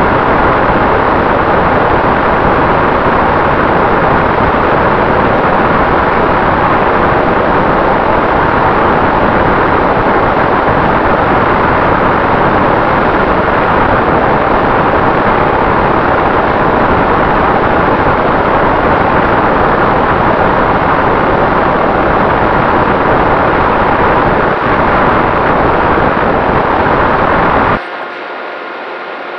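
Steady rush of airflow and the electric motor and propeller of a Volantex Ranger RC plane, picked up by its onboard camera's microphone. The noise drops off abruptly near the end, leaving a quieter hum.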